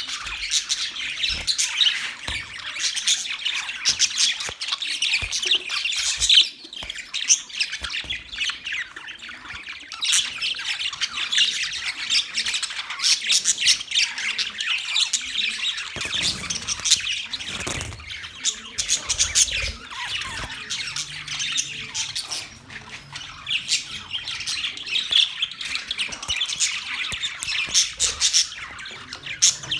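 A flock of budgies chirping and chattering continuously, many quick high calls overlapping.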